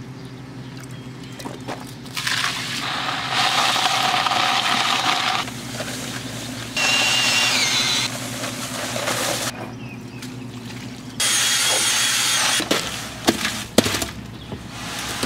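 Cordless drill with a paddle mixer running in three short bursts, the longest about three seconds, each starting and stopping abruptly with a motor whine over a churning rush as it mixes concrete in a plastic bucket. Near the end, a series of knocks and thuds as wet concrete is tipped from the bucket into a plywood form.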